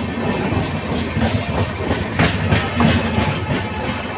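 Indian Railways passenger coaches rolling past at close range as the train comes in to its stop, steel wheels clattering over the rail joints. A couple of louder clanks come a little past the middle.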